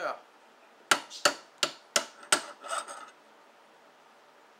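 About six sharp knocks in quick succession, like taps on the stuck metal scope mount on the rifle's rear sight base, spread over about two seconds.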